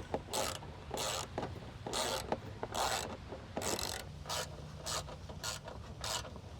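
Hand ratchet being worked back and forth in repeated short strokes, its pawl clicking as it tightens the bolt that holds a washer fluid reservoir in place.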